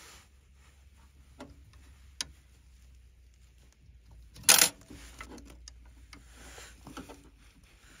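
Small clicks and taps as a metal spring retaining clip and the plastic Y-strainer water filter housing of a heat pump are handled and refitted, with one louder, brief clatter about halfway through.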